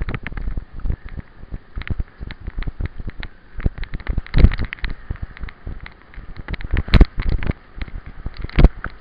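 Mountain bike rattling and clattering at speed over a rough, rooty dirt trail: a constant jumble of knocks with a few heavy thumps as it hits bumps, about halfway through, around seven seconds in and near the end.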